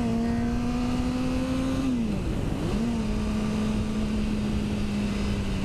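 Honda CBR600RR's inline-four engine running at steady revs while riding, its pitch dipping briefly a little past two seconds in and then settling slightly lower.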